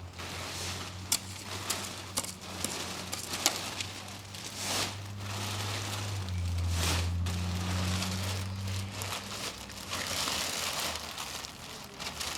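A plastic drop cloth being crumpled and gathered up, crinkling with sharp crackles, over a low steady hum that grows louder about six seconds in and fades near nine seconds.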